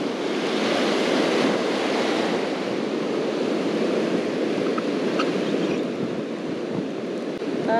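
Ocean surf breaking and washing up the sand in a steady rush.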